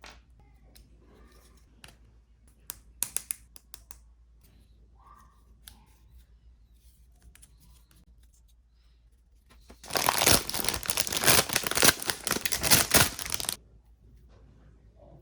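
Plastic kit packaging crinkled and torn open in one loud burst of about three and a half seconds near the end, after a few sharp clicks around three seconds in.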